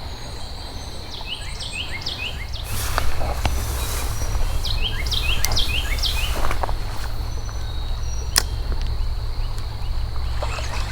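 A songbird singing runs of quick, short chirping notes over a continuous low rumble and a steady high-pitched tone. A few sharp clicks are heard, one near the end.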